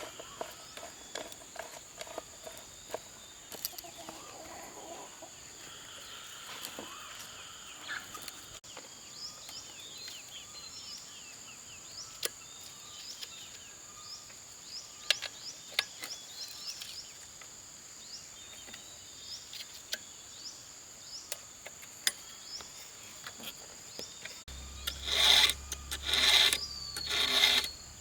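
Rural outdoor background with a steady high-pitched insect-like tone, bird chirps and scattered light knocks. About 24 seconds in, loud rhythmic rasping strokes on wood start, like a blade or rasp being worked back and forth through timber.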